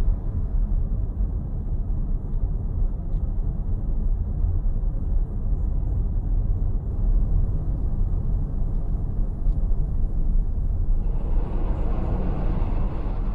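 Steady low rumble of a car in motion on a city street: road and wind noise with no distinct engine tone, swelling louder and brighter for a couple of seconds near the end.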